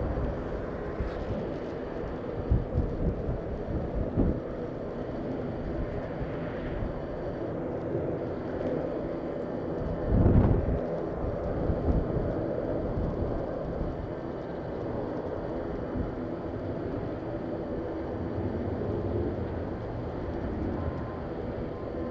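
Jet airliner engines heard at a distance as a steady rumble with faint steady tones, with gusts of wind buffeting the microphone, the strongest about ten seconds in.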